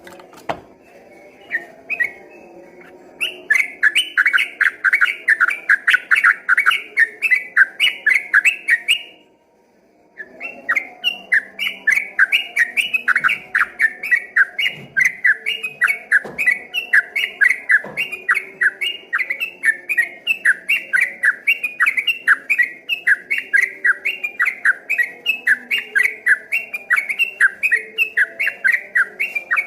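Yellow-vented bulbul (trucukan) singing a long, fast 'ropel' song: a chattering run of repeated bright notes, about three to four a second. The song stops for about a second near a third of the way through, then carries on without a break.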